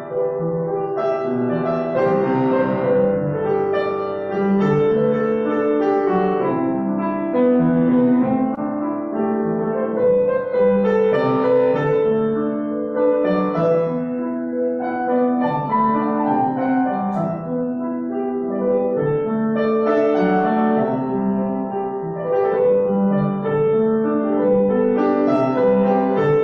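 Solo piano music: a flowing piece of held, overlapping notes and chords.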